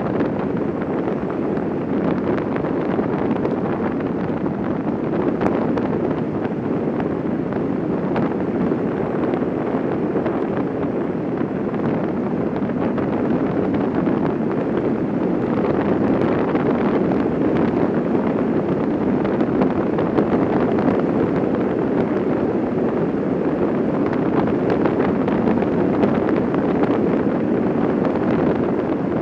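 Steady rush of wind and road noise from a Quest velomobile rolling fast downhill, with a few faint ticks scattered through it.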